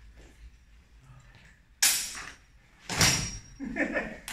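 Two sharp clashes of steel longsword blades about a second apart, the second leaving a brief high metallic ring.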